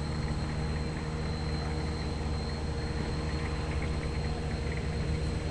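A steady low engine drone that holds one pitch, with no rise or fall.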